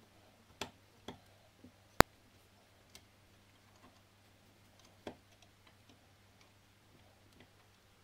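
Screwdriver clicking and tapping against the plastic housing, screws and terminals of an electric cooker's base: a handful of scattered clicks, the sharpest and loudest about two seconds in.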